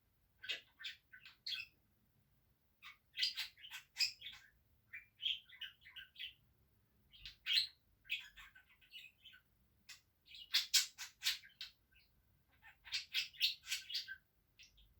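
Pet budgerigar chattering in clusters of quick, high-pitched notes, with short pauses between them.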